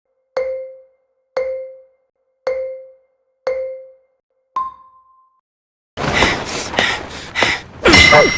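A marimba-like countdown chime: four short, identical low notes about a second apart, then one higher note. About six seconds in, a loud, dense burst of noisy sound with several sharp knocks starts.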